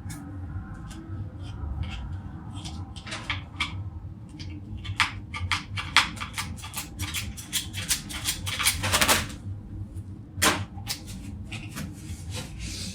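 Clicks and light knocks of a power cable and its plastic parts being handled, coming in a quick run about halfway through, with one sharper knock near the end, over a steady low hum.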